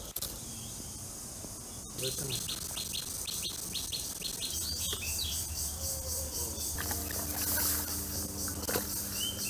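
Hot oil sizzling in a wok over a wood fire, the hiss swelling as potato wedges are tipped in near the end. A bird chirps in a quick series in the first half, and a low steady hum joins about halfway.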